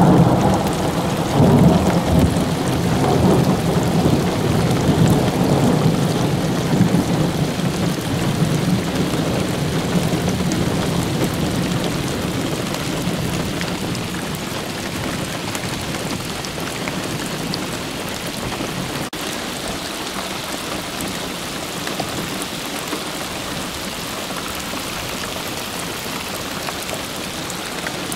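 Thunder rolling, loudest in the first couple of seconds and rumbling away over about fifteen seconds, with steady rain hissing throughout.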